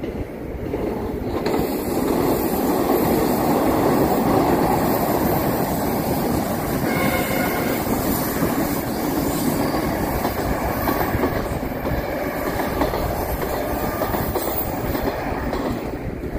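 Metro train passing close by on a curved surface track, its wheels rumbling and clattering on the rails. The sound builds as the train arrives, stays loud while the cars go by, and eases off near the end, with a brief wheel squeal about seven seconds in.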